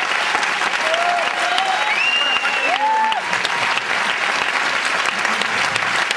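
Large audience applauding steadily, with a few short cheers rising above the clapping between about one and three seconds in.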